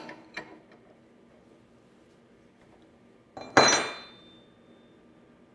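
One sharp metallic clank with a brief ringing tail, about three and a half seconds in, from steel wrenches on a CNC router spindle's collet nut as the nut is loosened. Otherwise quiet.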